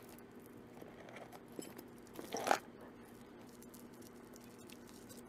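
Costume jewelry being sorted by hand: faint clicks and rustles of beads and metal pieces knocking together, with one louder rattle about two and a half seconds in.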